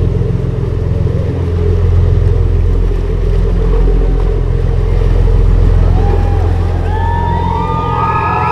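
Steady, deep drone of a large cruise ship's diesel engines as the ship passes close by, over a rush of water. About six seconds in, several high, whistle-like tones rise, hold and fall, overlapping one another.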